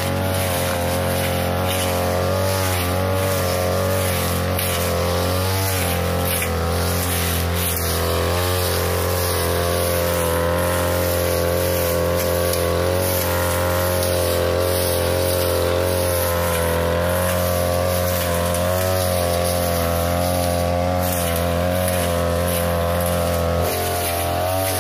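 42cc backpack brush cutter engine running steadily at speed while its blade cuts through thick grass. The engine note changes briefly near the end.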